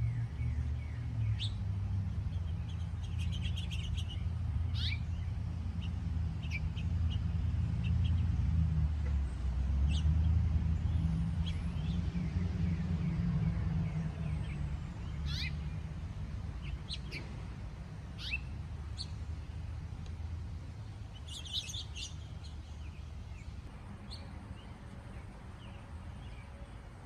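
Wild birds chirping, short scattered calls with a couple of busier flurries, over a low rumble that slowly fades.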